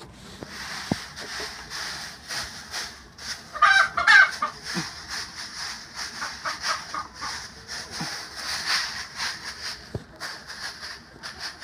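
A hand rustling and spreading dry wood-shaving sawdust bedding. A chicken's clucking call, the loudest sound, comes about four seconds in.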